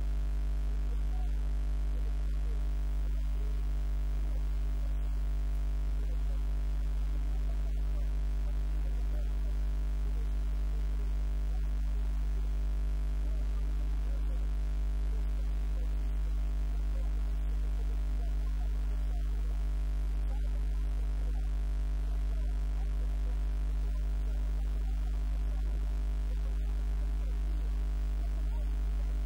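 Steady electrical mains hum, a low drone with a ladder of overtones that never changes, with faint indistinct wavering sounds beneath it.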